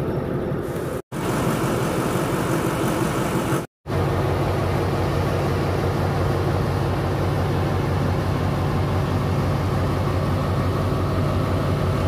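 Diesel locomotive engine running with a steady low hum, heard from the end of the carriage coupled to it. The sound drops out completely twice in the first four seconds.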